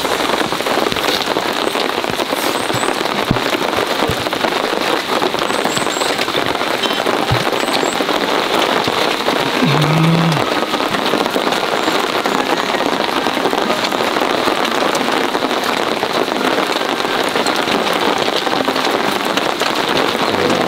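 Heavy rain falling steadily: an even, unbroken hiss and patter of drops.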